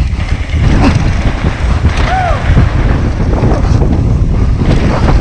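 Wind buffeting a helmet-mounted camera's microphone over the rumble of mountain-bike tyres rolling fast down a dirt trail, with a few knocks from the bike over rough ground.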